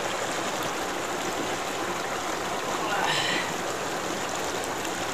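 Steady rush of flowing river water, an even hiss that does not let up.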